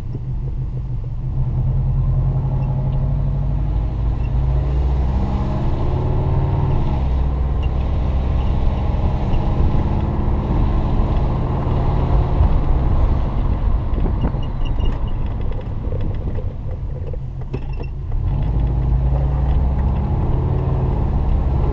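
Turbocharged Subaru Forester's flat-four engine running under way, its note rising and falling with the revs and dropping back for a few seconds about three quarters through. The driver takes the sound to mean the exhaust still has a leak.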